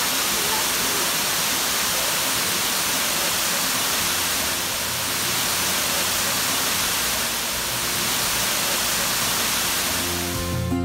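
Waterfall pouring down a rock face into a pool: a steady, even rush of falling water. Guitar music fades in near the end.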